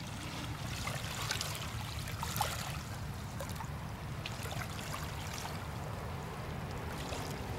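Ohio River floodwater lapping and trickling, with faint irregular small splashes over a steady low rumble.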